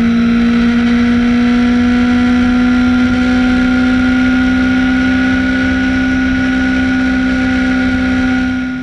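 Motorcycle engine held at steady high revs at speed on a straight, its note creeping slowly higher, with wind rush underneath. It fades out near the end.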